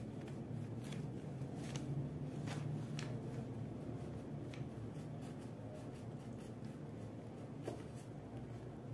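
Wax crayon rubbing and scratching on a paper colouring sheet on a table, in short, irregular strokes.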